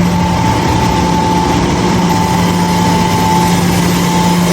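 Village hydroelectric powerhouse turbine and generator running: a loud, steady low hum with a higher whine above it, over a dense even noise, unchanging throughout.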